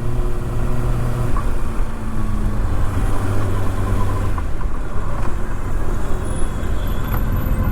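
Kawasaki ZX-6R's inline-four engine running steadily at low revs under wind and road noise while riding. About four seconds in, the engine note sinks beneath that noise.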